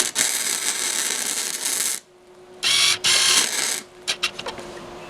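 Electric welding arc crackling and hissing in two bursts: about two seconds, a short pause, then about another second, followed by a few light clicks of metal.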